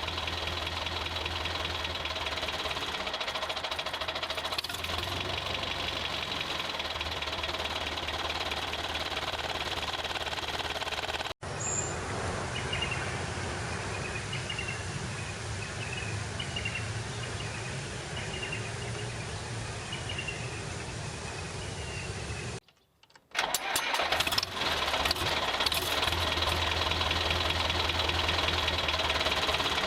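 A motor running steadily with a constant hum. It breaks off abruptly about eleven seconds in, then continues duller with faint high chirps. It drops out briefly again near twenty-three seconds before running on.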